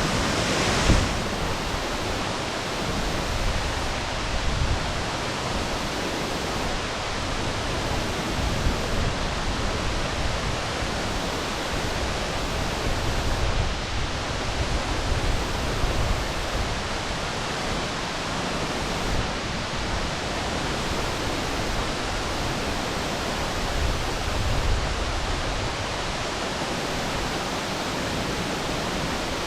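Waterfall crashing into its pool: a steady, full rushing of falling water, with a brief louder surge about a second in.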